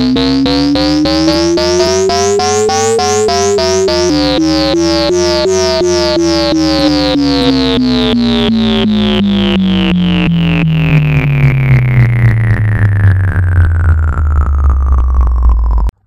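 Electronic synthesizer intro music: fast repeated pulsing notes under sweeping pitch glides, ending in one long falling sweep that cuts off suddenly.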